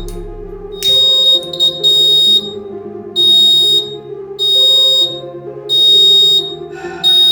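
Buzzer of a homemade fire detector alarm beeping: a high-pitched tone repeating roughly once every 1.3 seconds, each beep under a second long, over background music.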